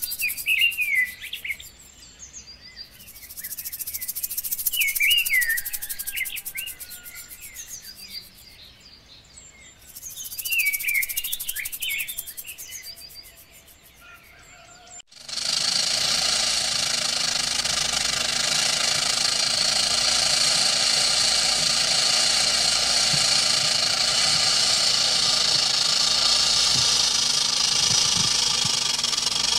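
Birds chirping over a high, pulsing insect chorus that breaks off twice. About halfway through, this cuts off abruptly and a loud, steady, dense drone takes over and holds.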